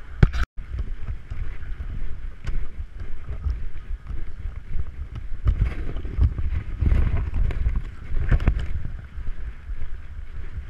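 Low rumble and soft handling knocks from a handheld action camera carried at a walk, with a few sharper clicks. A loud click and a brief moment of total silence about half a second in mark an edit.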